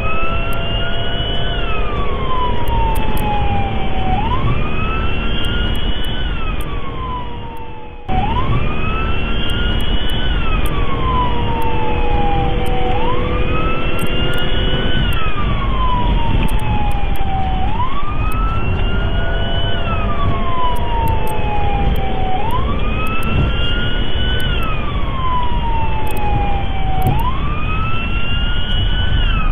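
Police car siren in wail mode, rising and falling about once every four to five seconds, heard from inside the pursuing cruiser over steady engine and road noise. It fades for a moment about six seconds in and cuts back in suddenly at about eight seconds.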